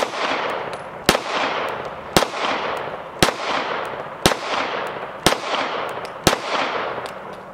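Girsan MC9 Disruptor 9mm striker-fired pistol firing seven slow, evenly spaced shots about a second apart, over a steady hiss that slowly fades.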